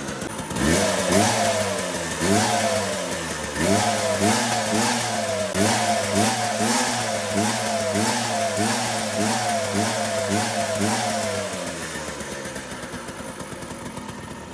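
Vespa Super's single-cylinder two-stroke scooter engine, fitted with electronic ignition, revved in quick repeated blips, about two a second. It then drops back to a steady idle that fades near the end. A faint whistle comes with it, which the owner puts down to the flywheel cover not yet being fitted.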